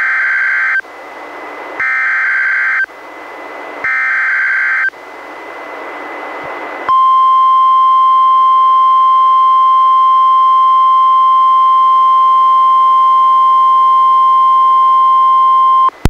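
NOAA Weather Radio emergency alert heard through a weather radio. First come three short SAME digital header bursts about two seconds apart, with radio hiss between them. About seven seconds in, the steady 1050 Hz warning alert tone starts and holds for about nine seconds, louder than the bursts. It signals that a warning is about to be read.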